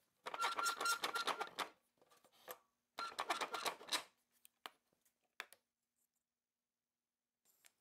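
Two bursts of rapid clicking and rattling, about a second each, then a few light single knocks: small quick-release bar clamps being worked and taken off a wooden board on a drill press table.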